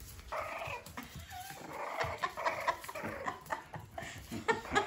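French bulldog puppies yipping and squeaking in short bursts as they play.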